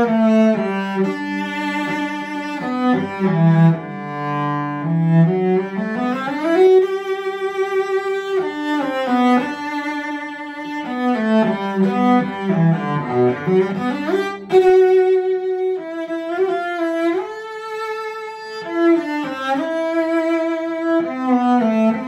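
A 1987 bench-made English 7/8-size cello by Ken Grimley and Randall Foster, bowed, playing a melodic passage of sustained notes that move stepwise, some held with vibrato.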